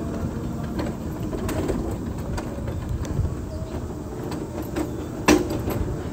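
Wheelchair rolling over a paved sidewalk: a steady low rumble from the wheels with scattered clicks and rattles, and one sharp knock about five seconds in.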